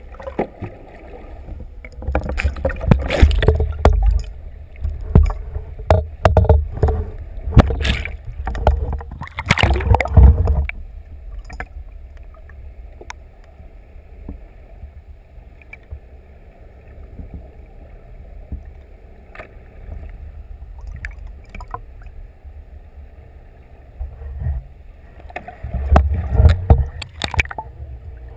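Muffled underwater noise picked up by a camera in its waterproof housing: a constant low rumble, with loud rushing, buffeting bursts of water against the housing for the first ten seconds or so and again near the end, and a faint steady hum in the calmer stretch between.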